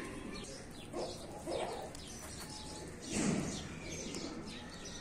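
Birds calling outdoors, with scattered faint clicks and ticks.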